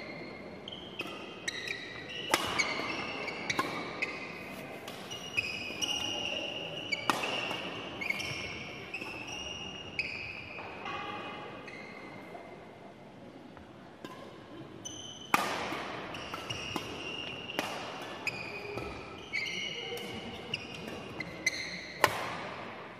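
Badminton rally on a wooden gym court: rackets strike the shuttlecock roughly once a second, with short high shoe squeaks on the floor between shots. The hits thin out for a few seconds midway, and there is one sharper, louder hit near the end.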